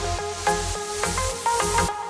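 Background music: an instrumental passage with a steady beat, a bass line and a melody.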